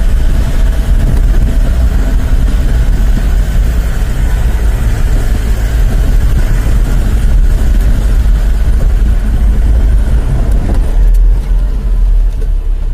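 Steady loud rumble of a car's engine and tyres on a rough dirt road, heard from inside the vehicle.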